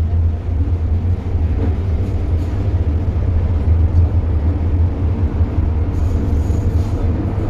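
Steady low rumble of an MTR Tsuen Wan Line M-Train running, heard from inside the passenger car.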